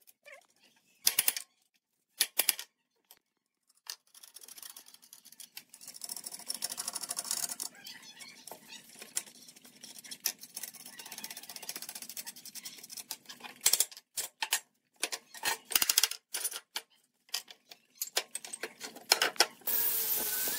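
Sharp metal clicks and knocks of steel bar clamps being set and screwed tight across a wooden panel, with a stretch of quicker, fainter rattling in the middle. Near the end a small angle grinder with a sanding disc starts up, running with a steady hiss as it sands a board.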